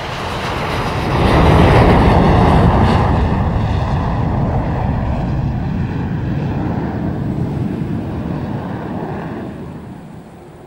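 A loud rushing roar with a deep rumble under it, swelling over the first two seconds and slowly dying away near the end.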